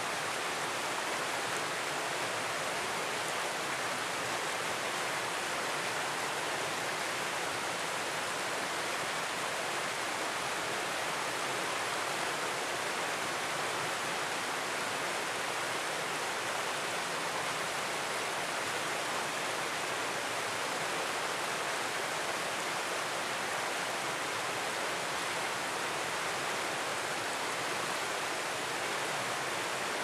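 Shallow mountain stream rushing over rocks in small rapids: a steady, even rush of water with no change in level.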